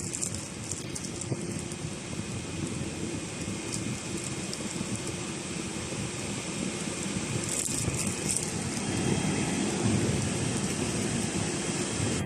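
12 V parking air conditioner running in strong cooling mode with the blower on its highest speed: a steady rush of air with a faint hum.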